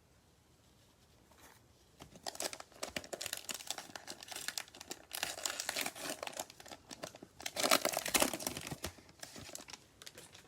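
Plastic cello pack of football trading cards being torn open and its wrapper crinkled: a run of crackling rustles starting about two seconds in, loudest toward the end.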